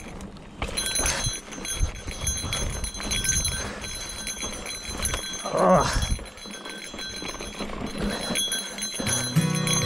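2020 Trek Fuel EX 5 mountain bike riding over rough trail: tyre noise with irregular knocks and rattles from the bike, and a short vocal exclamation about five and a half seconds in. Background music with bells comes in near the end.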